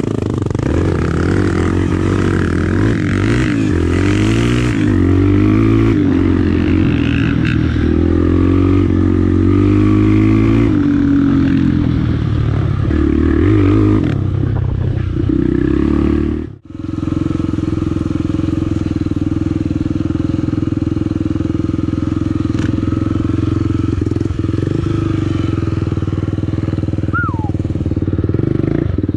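Honda Tornado trail bike's single-cylinder engine being ridden, its pitch rising and falling with the throttle. It cuts out sharply for a moment a little past halfway, then runs at a steady pitch.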